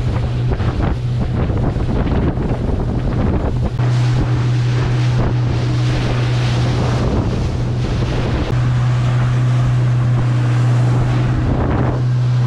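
Motorboat under way at speed: the engine's steady low hum under the rush of water along the hull and wind buffeting the microphone.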